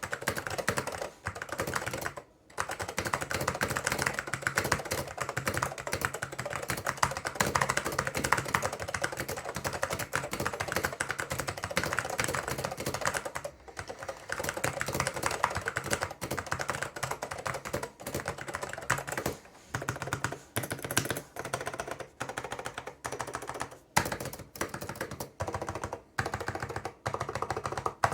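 Typing on an Apple Extended Keyboard M0115 with orange Alps switches: a fast, continuous run of key clicks that breaks up into slower, separate keystrokes with short pauses in the last third.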